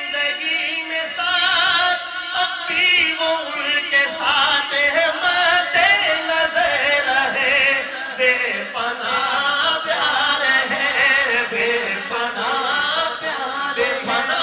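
Unaccompanied male voices chanting an Urdu manqabat, holding long, wavering notes with vibrato and ornamented turns.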